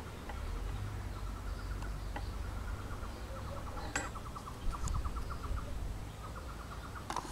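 A small animal's rapid trills, about ten clicks a second in bursts of half a second to a second, repeated over and over. There is a low rumble on the microphone and a single sharp click about four seconds in.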